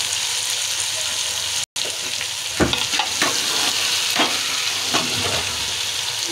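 Sem aloo sabzi sizzling in a metal pot while a metal ladle stirs it, knocking and scraping against the pot several times in the second half.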